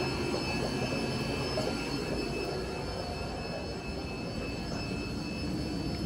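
Steady mechanical hum with several faint, steady high whines above it, from the running air pumps and filters of the shop's rows of aquarium tanks.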